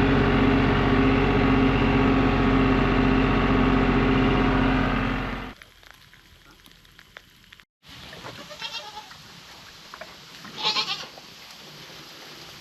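An engine running steadily that cuts out about five and a half seconds in, then goats bleating twice in the quieter second half.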